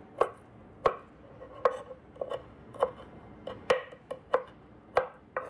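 Kitchen knife chopping ginger on a wooden cutting board: a steady run of sharp knocks, a little under two a second.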